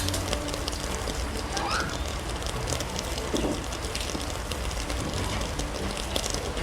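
Steady rain falling and pattering, with many small drop ticks. A brief rising chirp sounds about two seconds in.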